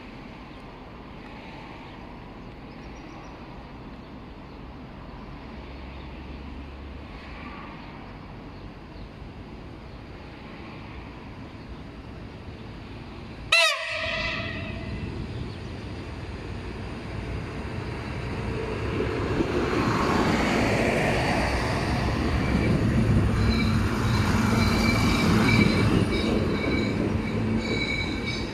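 Siemens Desiro diesel multiple unit sounding one short, loud horn blast about halfway through. Then its engine and running gear grow steadily louder, with wheel squeal near the end.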